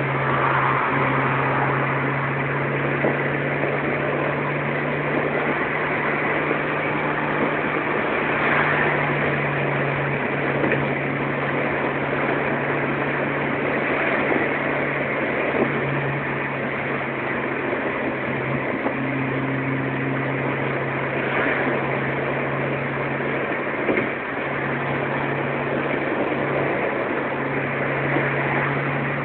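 Car engine droning steadily under a constant rush of tyre and wind noise, heard from inside the cabin at highway speed.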